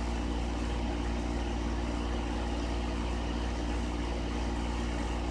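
Steady low hum of a vehicle engine running, heard inside the cab, with a faint even hiss over it.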